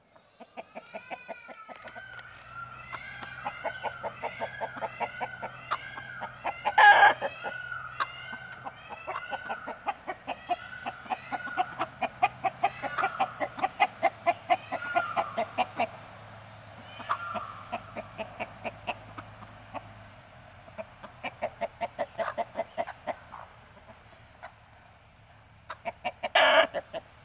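Chickens clucking in a rapid, near-continuous chatter of short notes, with two loud sharp calls, one about seven seconds in and one near the end.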